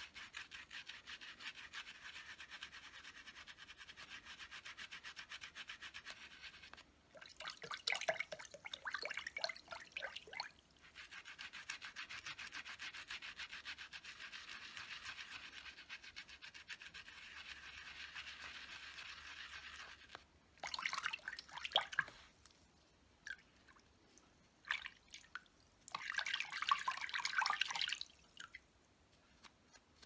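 Makeup brush bristles scrubbed rapidly on a ridged silicone cleaning pad in soapy water, a steady bristly swishing. Three times it turns louder and rougher for a second or two as the brush is worked harder against the pad.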